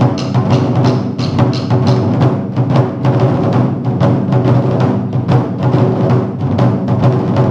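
Chinese drum ensemble playing large barrel drums (tanggu) and a flat hand-held drum with sticks, a fast, dense run of strokes that goes on without a break.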